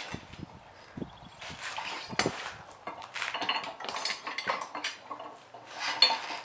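Steel parts of a Harbor Freight manual tire changer clanking and scraping as its bead breaker is worked against a tire that won't give. Irregular clicks and scrapes, with a louder metallic clank that rings briefly near the end.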